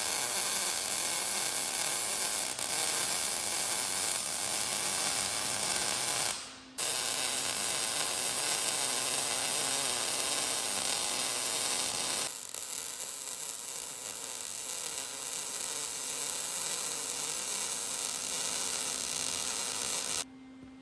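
Angle grinder grinding a steel mower deck smooth: a steady loud run that dies away briefly about six seconds in, starts again, turns lighter in tone about halfway through, and cuts off just before the end.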